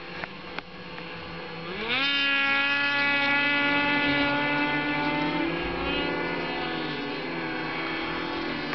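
Snowmobile engine revving up sharply about two seconds in, then held at high revs with a steady pitch that wavers slightly.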